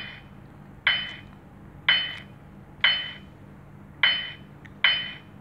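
Countdown timer sound effect in a slideshow: a short, bright clinking tick with a brief ringing tone, repeated six times at about one a second as the clock counts down.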